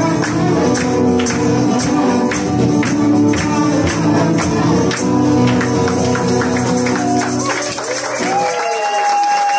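Live acoustic cover: strummed acoustic guitar in a steady rhythm with singing, ending about eight seconds in as the guitar stops and a final note is held on its own.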